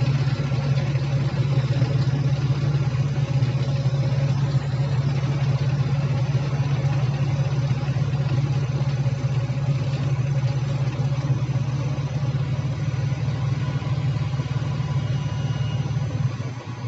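Heavy earthmoving machine's diesel engine running steadily at constant speed, then dropping off abruptly near the end.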